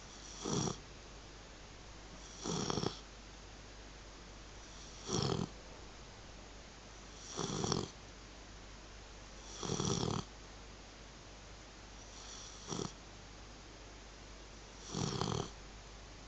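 Black Labrador retriever snoring: seven short snores, each about half a second long, coming about every two and a half seconds.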